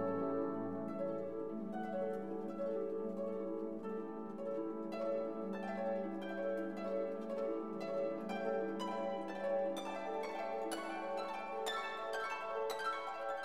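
Instrumental background music of plucked strings over a held low note, with the plucked notes coming quicker from about five seconds in.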